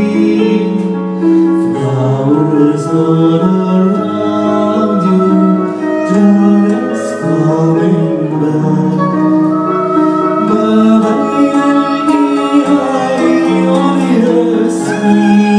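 Live band music: a melodic passage of held notes that change about once a second, with light percussion.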